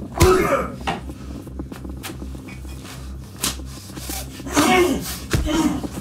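Scuffle: a man's strained grunts and cries with a few sharp knocks, the loudest cry right at the start and more about four and a half to five seconds in, over a low steady pulsing.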